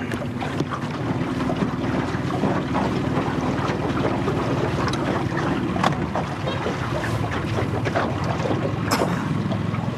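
Small boat's outboard motor running steadily at low speed, a constant low hum, with wind buffeting the microphone.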